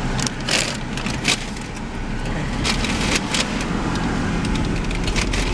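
Paper food bag rustling and crinkling in a few short rustles as it is handled, over the steady low hum of the car's engine heard inside the cabin.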